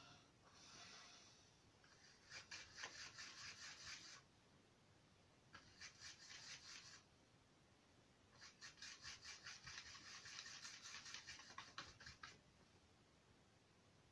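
Paintbrush scrubbing back and forth in quick short strokes, about six a second: a soft dry scratching that comes in three spells, the last and longest starting about eight seconds in.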